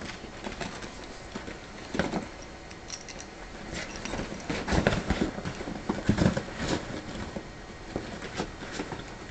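A ferret and a small dog scuffling at play: paws scrabble and patter on the floor with irregular bumps and thumps, busiest around the middle.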